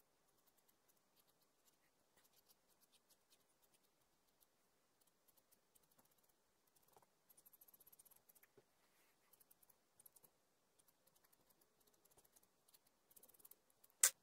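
Sanguine pencil scratching faintly on paper in quick shading and hatching strokes, with a denser run of strokes about seven to eight seconds in. A single sharp click near the end is the loudest sound.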